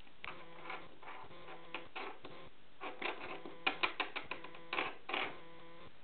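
A run of light, irregular clicks and taps: a small metal ring being pushed and tapped against a plastic windowsill by hand, the taps coming thicker and louder in the second half.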